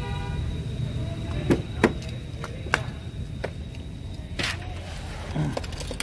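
Sharp clicks and knocks, the loudest about two seconds in, and a short rush of noise about four and a half seconds in, over a steady low rumble: handling noise from opening the front door of a 2018 GMC Yukon XL and getting in.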